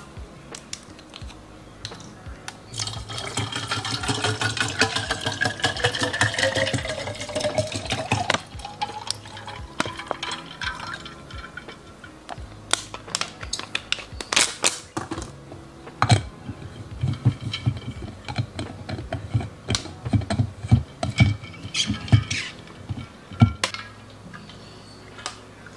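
Water poured from a plastic bottle into an insulated tumbler, the pitch rising steadily as the tumbler fills. Sharp clinks and a series of low knocks follow in the second half.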